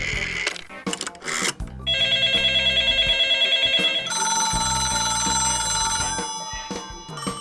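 Telephone sound effects over background music: clicks and hiss at first, then a telephone bell ringing with rapid strikes about two seconds in, followed by a steadier ringing tone that stops about a second before the end.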